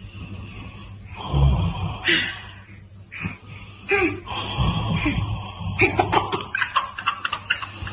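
Wheezy, breathy laughter in irregular bursts, broken by snort-like breaths.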